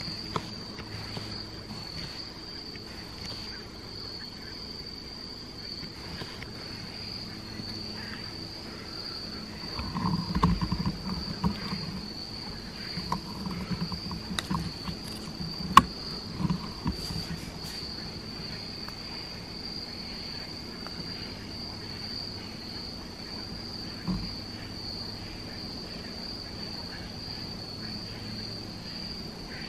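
Steady high-pitched insect chorus droning through the woods. From about ten seconds in there is a spell of louder irregular rustling and knocking, with one sharp crack near the middle of it.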